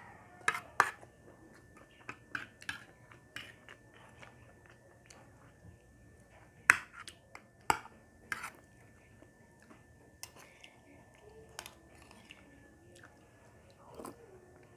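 A person eating with a spoon: chewing and mouth smacks, with scattered sharp clicks and taps of the spoon against a ceramic plate and a plastic bowl.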